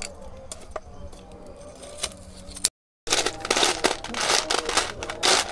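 A spoon stirring and scraping in a bowl, a fast run of scrapes and clinks, after a few faint clicks and a moment of dead silence.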